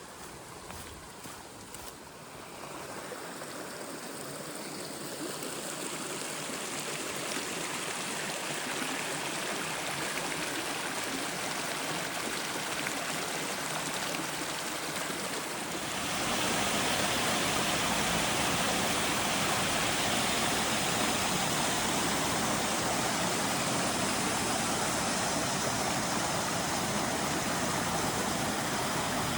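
Mountain stream rushing over rocks, a steady watery roar that swells gradually as it nears. About halfway in it jumps to a louder, fuller rush.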